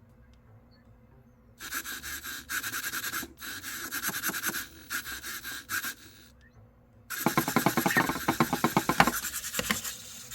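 EMO pet robot's small motors whirring and grinding in a series of bursts, then rattling densely for a few seconds near the end, as it repeats the same movement without stopping. This is the looping glitch that a power restart cures.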